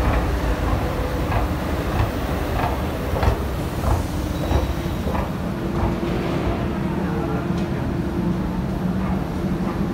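Lisbon Metro station noise: a steady low rumble with regular clicks about twice a second during the escalator ride down, then a metro train standing at the platform with a steady hum from about six seconds in.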